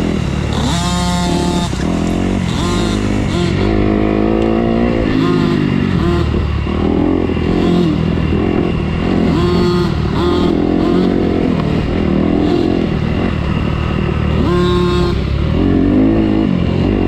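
Dirt bike engine running under load on a trail, the throttle opening and closing so the engine note rises and falls again and again.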